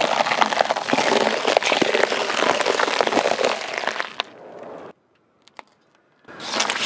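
Bell peppers bursting under a slowly rolling car tyre, a dense, continuous crunching and crackling for about four seconds that tails off as the last pepper is flattened. After a short quiet with a single click, star fruit start crunching under the tyre near the end.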